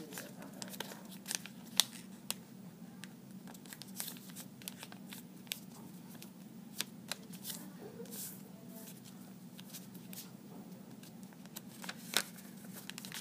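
Sheet of paper being folded and creased by hand on a table as a paper airplane: scattered crisp rustles and sharp taps and clicks as fingers press the folds flat, over a steady low hum.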